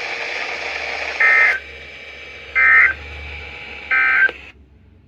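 Emergency Alert System end-of-message data tones: three short bursts of screeching digital tones, about a second and a half apart, over a steady broadcast hiss. The hiss cuts off just after the third burst, marking the end of the alert.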